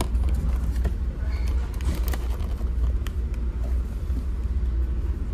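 Steady low drone of a ferry's engines and hull. Over it come a few light paper clicks and rustles as a paperboard snack box is opened.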